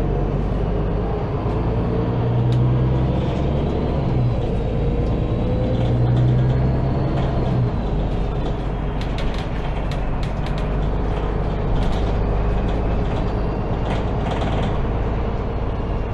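Onboard sound of a MAN Lion's City G articulated city bus under way: the engine's low hum over road noise, dropping out about eight seconds in. Cabin fittings click and rattle through the second half.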